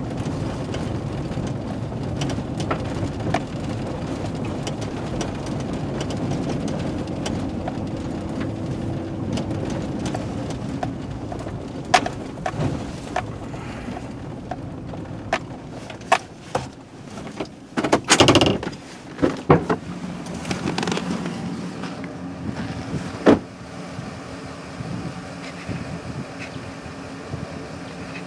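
Inside a car on a dirt road: steady engine and tyre rumble that drops off after about ten seconds as the car slows and stops. The engine keeps running, with scattered clicks and knocks and a loud burst of handling noise about eighteen seconds in.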